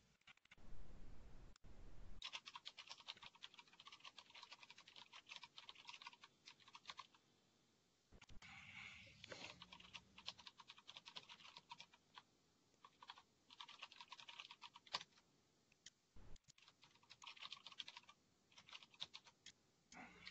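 Computer keyboard typing, faint, in several runs of quick keystrokes with short pauses between them.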